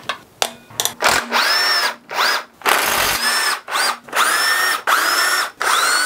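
A few sharp clicks, then a cordless power tool run in about eight short trigger bursts. Each burst is a motor whine that rises quickly and then holds, as it spins bolts out of the engine's water passage housing.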